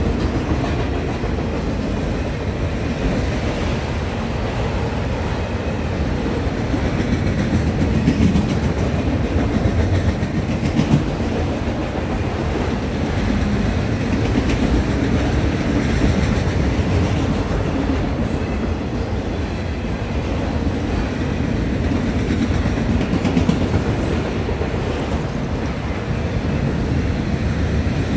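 Freight train of autorack cars rolling past at speed: a steady rumble with wheels clattering over the rail joints.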